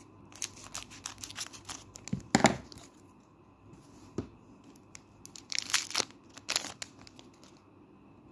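Kaldheim draft booster pack's foil wrapper crinkling and tearing as it is ripped open. The noise comes in two stretches, the loudest tear about two and a half seconds in.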